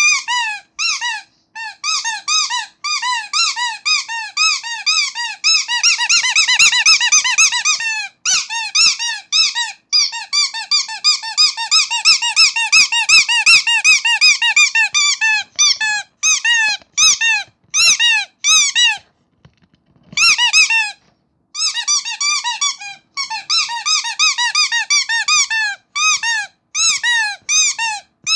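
Rubber starfish squeaky toy squeezed over and over, giving short high squeaks in quick succession, each rising and falling in pitch, with a short pause about two-thirds of the way through.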